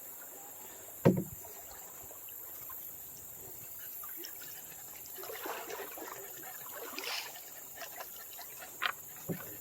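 Canoe being paddled through a narrow, shallow run: a hard knock on the hull about a second in, water rushing and splashing around the boat, and a couple of lighter knocks near the end.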